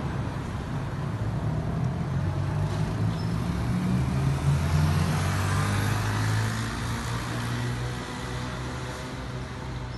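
Boeing 767-300 freighter's two jet engines rumbling as it climbs out after takeoff, swelling to a peak about halfway through and then slowly fading.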